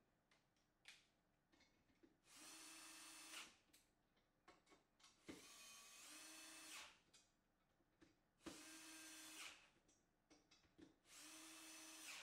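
Cordless drill-driver driving screws into a metal desk-leg frame: four short runs of its motor, each about a second long, with small handling clicks between them.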